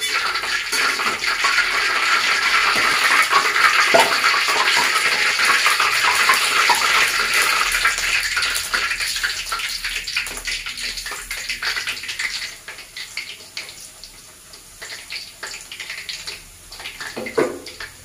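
Tofu deep-frying in hot oil in a wok: a loud, steady sizzle full of small crackles. About two-thirds of the way through it dies down to a softer, scattered crackle.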